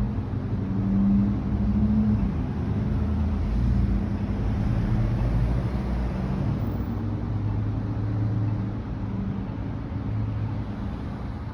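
A motor engine running steadily with a low hum, its level swelling and easing slightly.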